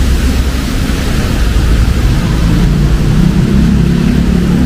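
Road traffic in the rain: a steady low rumble of vehicle engines under an even hiss, with an engine's low hum building from about two seconds in.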